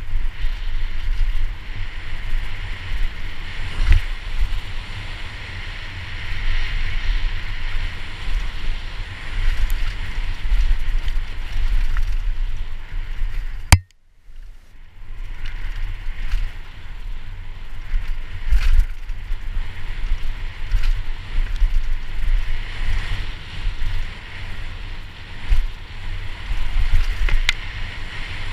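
Wind buffeting a helmet-mounted camera's microphone over the rattle of a downhill mountain bike's tyres and frame on a rough dirt trail at speed. About halfway, a sharp click, and the sound drops out for about a second before the rush returns.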